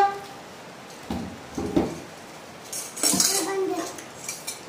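A metal spoon and fork scraping and clinking against ceramic noodle bowls during eating, with a noodle slurp about three seconds in.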